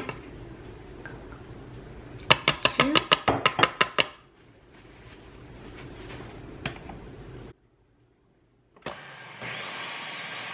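A quick run of about ten sharp clicks. After a brief break, a food processor's motor starts and runs with a steady whir.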